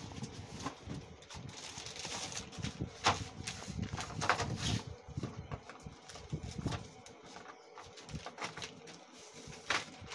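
A clear plastic case of pastels being unwrapped and opened on a desk: plastic wrap rustling and crinkling, with scattered sharp clicks and knocks of the plastic case and lid, the loudest a few seconds in.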